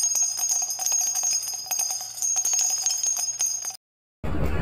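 Intro sound effect of jingling bells: rapid ticks under a held high ringing tone, cutting off suddenly near the end. After a brief silence, crowd noise comes in at the very end.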